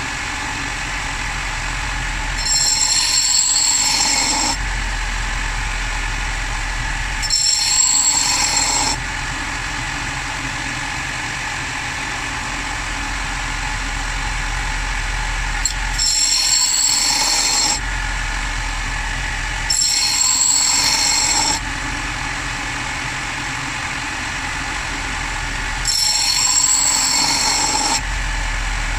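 Electric abrasive power tool running steadily while sharpening a steel axe head. The blade is pressed to it in five bouts of about two seconds, and each bout adds a louder, higher grinding hiss of metal on the abrasive.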